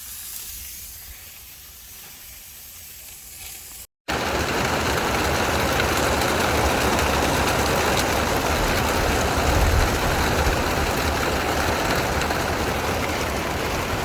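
A faint steady hiss, then, after a sudden cut about four seconds in, a loud, steady rushing noise with a low rumble: wind and water noise aboard a sailboat under way.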